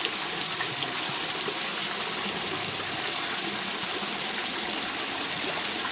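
Steady rush of water gushing into a fish pond from an electric pump's outlet.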